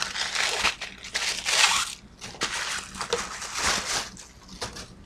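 Wrapping crinkling and rustling in a series of irregular bursts as a packaged bundle of hair extensions is unwrapped by hand, easing off near the end.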